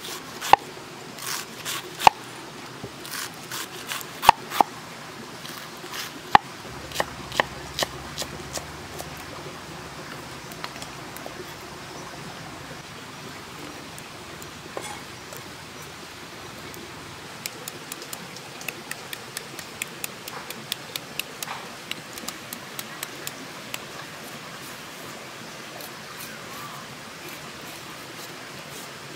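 Large knife shredding cabbage on a wooden chopping board: sharp, irregular chops through the first several seconds, then a quicker run of lighter chops later on, over a steady low hiss.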